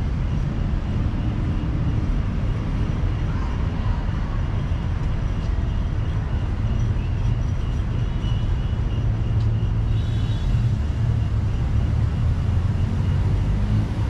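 Steady city traffic noise: a continuous low rumble of cars on a busy road.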